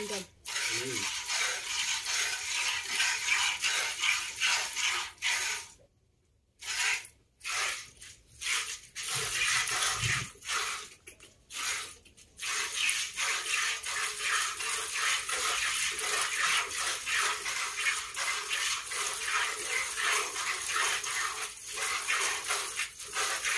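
A cow being milked by hand: streams of milk squirting into a plastic bucket in a steady rhythm, about two to three squirts a second. There is a brief break about six seconds in.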